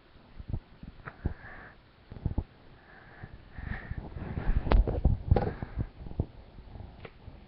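A plush toy and its zippered case being handled right against the webcam microphone: scattered soft knocks and fabric rubbing, busiest and loudest about four to five and a half seconds in, with a couple of short breathy sniffs.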